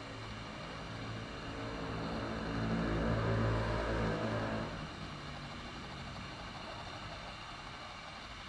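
A motor vehicle passing by: a low engine hum with some road noise swells to a peak about three seconds in and fades away by about five seconds.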